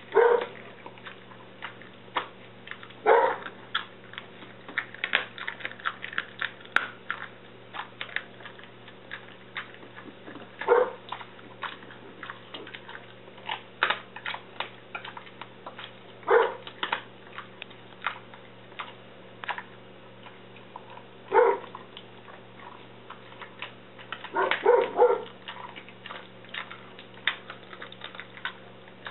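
A dog crunching and gnawing a raw bone-in pork rib, its teeth clicking and cracking on the bone. A dog gives short barks every few seconds, ending in a quick run of barks.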